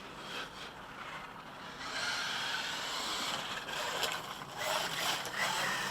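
Electric-converted OFNA LX1 1/8-scale RC buggy driving, its electric motor running and tyres working over the ground, getting louder about two seconds in.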